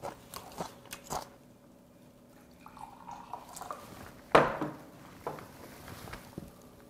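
Bottles and a glass being handled on a wooden table, with a sharp knock about four seconds in. Near the end, beer is poured from a bottle into a glass to mix soju and beer.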